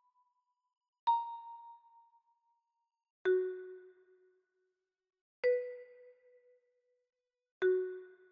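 Four bell-like electronic chime tones, one about every two seconds, each struck sharply and fading out over about a second. The first is high and the other three are lower, at changing pitches.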